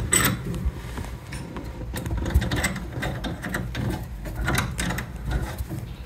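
Irregular small metallic clicks and rattles of a braided stainless filling-loop hose being handled and reconnected to the fittings under a combi boiler.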